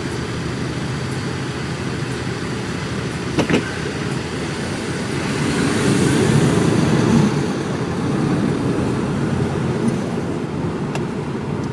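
Inside the cab of a Mercedes Actros lorry on the move: steady low diesel engine and road rumble, swelling louder for a couple of seconds around the middle.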